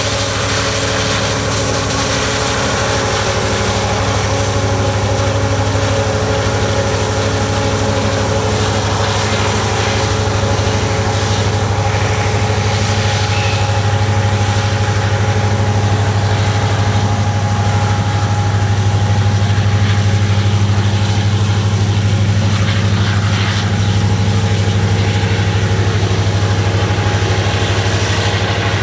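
Loaded diesel freight coal train rolling by under power: a steady, loud engine drone over the rumble of wheels on rail, building slightly toward the middle.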